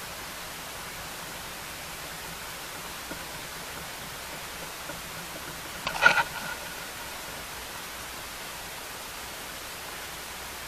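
Steady hiss, with a short clatter of a few sharp knocks about six seconds in.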